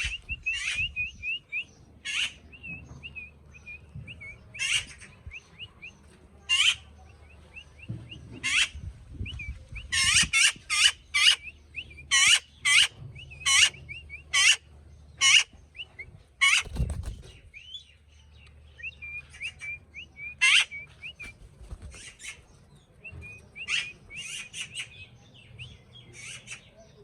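Pet green parrot calling: many short, sharp screeches, some in quick runs, over a soft running chatter of small chirps.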